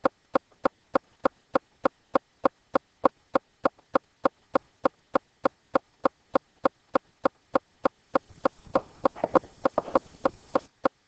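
Steady, evenly spaced clicking, about three clicks a second. Fainter irregular noise joins in during the last few seconds.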